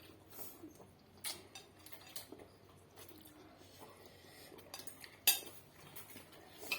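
Eating utensils clicking and clinking against a bowl in scattered single taps, the loudest a little past five seconds in.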